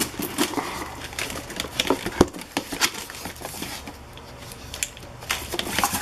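A cardboard shipping box being opened and its flaps and inner cardboard handled: irregular crackles, scrapes and rustles, with one sharper snap about two seconds in.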